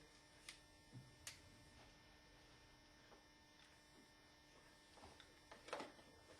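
Near silence: room tone with a faint steady hum and a few small clicks.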